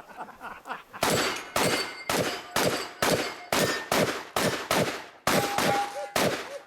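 Open-class competition shotgun fired rapidly, about a dozen shots at roughly two a second starting about a second in, with steel targets ringing after some of the hits.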